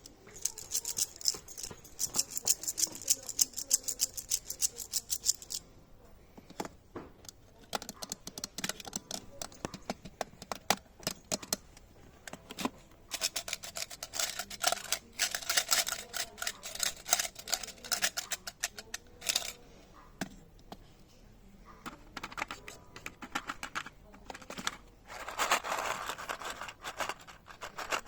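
ASMR clicking: rapid trains of small, sharp clicks and taps, crowded closely together at times. A scratchy rubbing sound joins in near the end.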